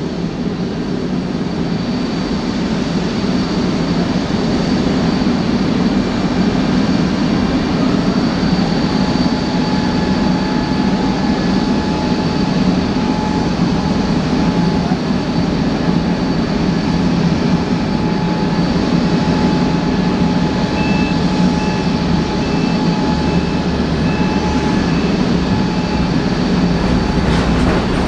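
Boeing 787-8 airliner's jet engines running steadily: a loud rushing roar with thin, high, steady whines over it.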